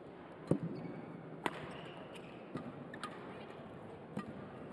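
Badminton doubles rally: sharp racket strikes on the shuttlecock, about five hits roughly a second apart, mixed with players' footfalls on the court, in a large echoing hall.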